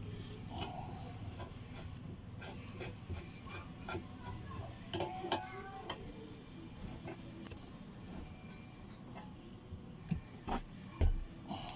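Irregular light metallic clicks, knocks and clinks of hand tools and loosened bottom-bracket and crank parts being handled on a bicycle, with a few short ringing metal notes and a steady low hum underneath.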